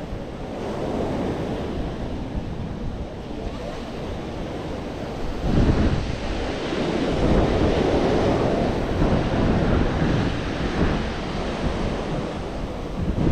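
Mediterranean sea waves washing onto the shore, with wind rumbling on the microphone. The surf swells louder about halfway through.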